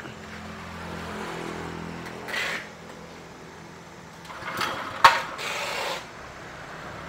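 Small 5.5 hp petrol engine driving a grass chopper, running steadily at low speed, with a sharp knock and a brief burst of noise about five seconds in.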